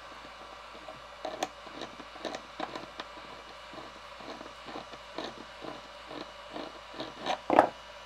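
Light clicks and taps of hands handling plastic tubing and a threaded barb fitting, with one louder knock about seven and a half seconds in.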